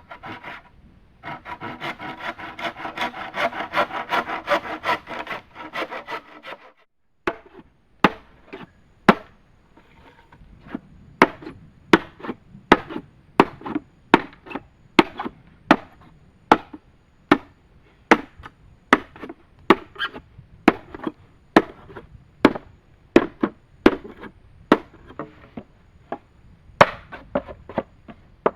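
Wood being cut by hand: about five seconds of rapid sawing strokes, then steady chopping blows, a little more than one a second.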